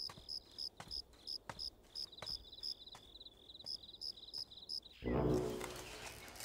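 Crickets chirping in a steady rhythm, about three chirps a second. About five seconds in they cut off abruptly as a loud, low, pitched rumble swells up and fades away.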